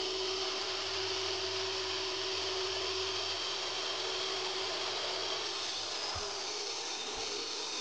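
Table saw running steadily with a constant whine while ripping pine boards to width. A low rumble under the cut fades about five seconds in, and two dull knocks follow near the end.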